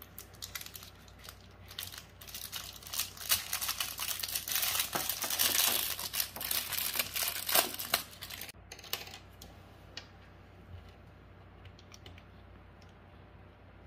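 Thin clear plastic wrapper crinkling and tearing as hands pull open the bag of a plastic balloon-paste kit, a dense crackle that is loudest in the middle. In the last few seconds only a few faint clicks remain.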